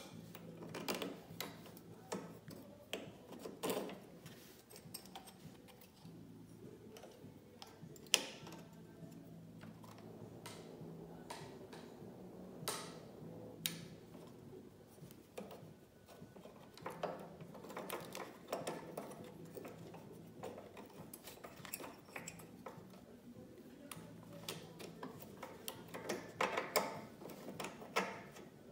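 Irregular light clicks and taps of small metal parts being handled as a thin metal gasket plate and the carburetor are fitted back onto the studs of a Honda push-mower engine by hand, with a sharper click about eight seconds in and a quick run of clicks near the end.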